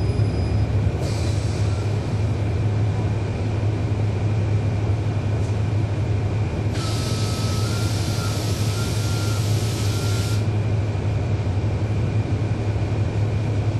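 Cabin of a 2012 NABI 40-SFW transit bus with its Cummins ISL9 diesel engine running, a steady low drone throughout. A hiss lasting about three and a half seconds comes in about seven seconds in, after a brief one about a second in.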